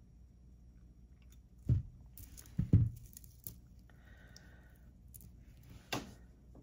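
Hands working jewelry-making pliers, a jump ring and beads on a work surface: a few soft knocks about two to three seconds in and another near the end, with light clicks between.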